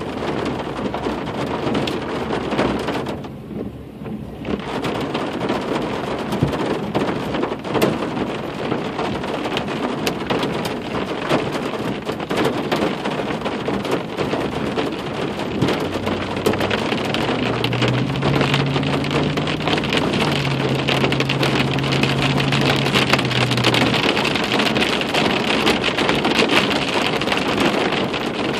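Heavy thunderstorm rain hitting the car's roof and windshield, a dense patter of drops heard from inside the cabin. It eases briefly about three seconds in, and a low steady hum joins it past the middle.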